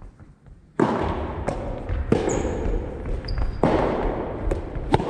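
Soft tennis rally in a large gym hall: a racket strikes the rubber ball sharply about a second in and again past the halfway mark. Each hit rings out in a long hall echo, with short shoe squeaks on the wooden floor between them and lighter ball clicks near the end.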